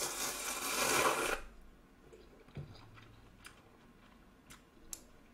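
A person slurping a mouthful of instant ramen noodles: a loud, hissing slurp lasting about a second and a half. Then a few faint clicks of chopsticks against the pan.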